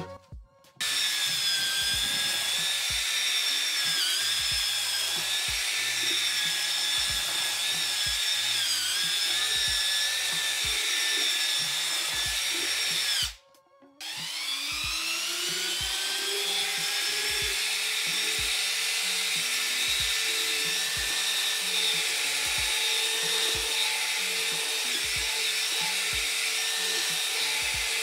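Parkside PFMRA 20-Li A1 cordless paddle mixer's electric motor running with a steady high whine. It stops for about a second around halfway, then spins back up, rising in pitch, and runs on. Background music with a steady beat plays underneath.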